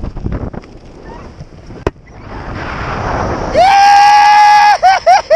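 Wind rushing over the microphone, building up, then a man's loud, long high-pitched whooping yell about three and a half seconds in, followed by a few short whoops near the end.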